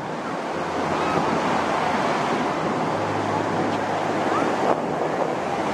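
Ocean surf washing onto a sandy beach, a steady rush of noise, with wind buffeting the microphone.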